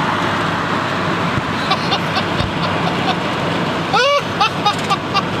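Steady road and engine noise inside the cab of a vehicle moving at highway speed. About four seconds in a man lets out a loud laugh, followed by a few shorter laughs.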